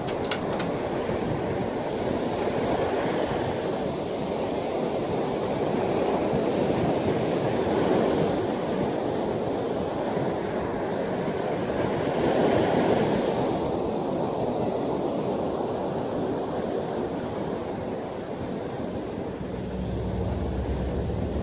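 Ocean surf washing in steadily, swelling twice. A couple of small metal clicks at the start as the old trunk's latch is worked, and a low steady hum comes in near the end.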